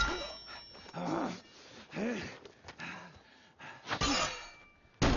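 A sword strikes a shield with a ringing metallic clang at the start, and again about four seconds in. In between, a man grunts and groans with effort three times, about a second apart.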